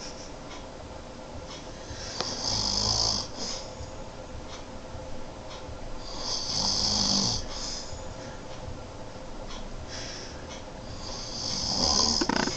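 A man snoring in his sleep: three loud snores about four and a half seconds apart, each a rasping, hissy breath lasting about a second.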